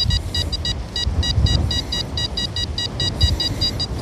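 XP Deus 2 metal detector giving a rapid run of short high-pitched beeps, about six a second, as the coil works over a target reading 87, a high-conductive signal the detectorist calls "another banger". Wind rumbles on the microphone underneath.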